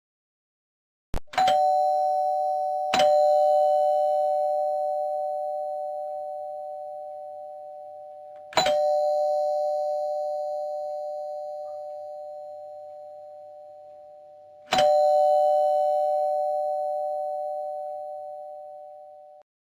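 Doorbell chime struck four times, each strike ringing two notes together that fade slowly. The strikes come about a second in, at three seconds, near the middle and about six seconds later, and the last ring cuts off suddenly near the end.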